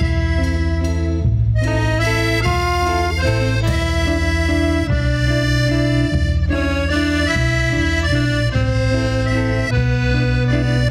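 Cumbia band playing an instrumental break, an accordion carrying the melody in held notes over a pulsing bass line.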